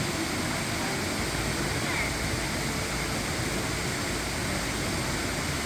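Mountain stream water rushing steadily over rocks in a gorge, close by.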